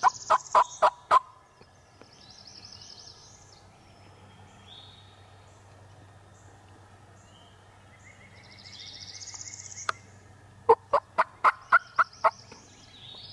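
Wild turkey gobbling, close and loud, twice: a rapid rattling burst right at the start and another about two seconds before the end. Small birds chirp faintly in between.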